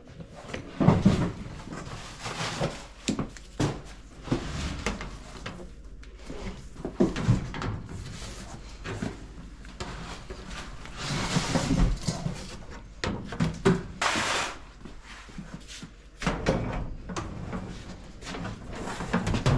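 Sheet-metal ductwork being worked by hand: irregular clanks and knocks, with a few short scraping stretches of metal on metal.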